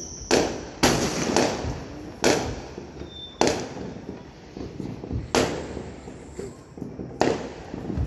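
Aerial firework shells bursting: about seven sharp booms at uneven intervals, each trailing off in an echo.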